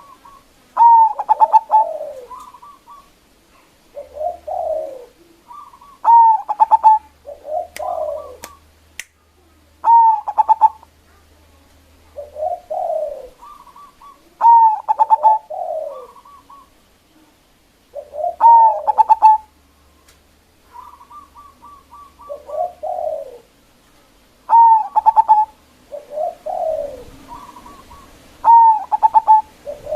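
Local zebra dove (perkutut) cooing repeatedly: each phrase is a quick run of stuttering notes followed by lower falling coos, repeated every few seconds. Loud, vigorous calling of the kind used as a lure to set rival doves calling.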